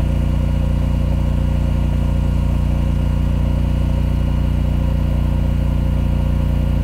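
A competing brand's standby generator runs steadily under load at 3,600 rpm, giving an even engine drone with a strong low hum.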